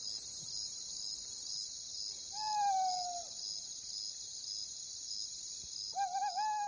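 Night-time nature ambience: a steady high chirring of insects with an even pulse about twice a second, and two owl calls, a falling one about two and a half seconds in and a wavering one near the end.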